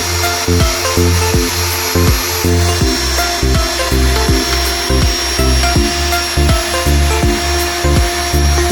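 Background music with a steady beat and a bass line of short repeated notes.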